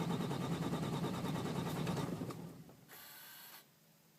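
2008 Ram's 6.7 L Cummins inline-six diesel being cranked by the starter without catching: a crank-no-start. The cranking stops about two seconds in, and a brief hiss follows near the end.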